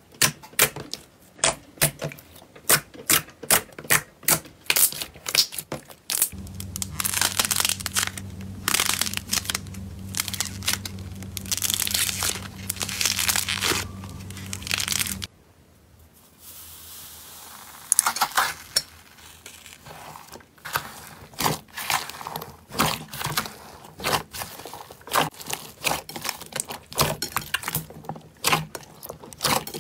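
Hands squeezing and pressing slime, giving quick sticky clicks and pops. In the middle stretch, clay on top of slime is pulled apart with a crinkly tearing sound over a low steady hum.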